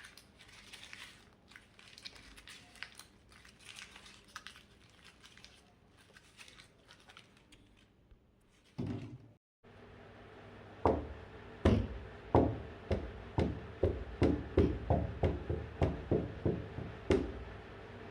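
Faint scattered crinkling and light clicks, then, after a brief break, a steady series of dull thumps at about two a second.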